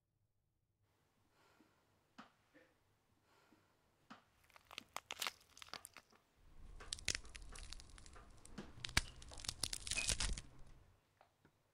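Horror sound-design effect of crackling and cracking. Faint scattered clicks and snaps begin about a second in and build into a dense crackling, tearing noise over a low rumble, which fades out near the end.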